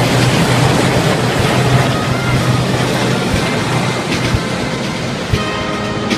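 Three military helicopters flying past low overhead in formation: a steady loud rotor and engine noise that slowly fades as they move away. About five seconds in, a military brass band starts playing.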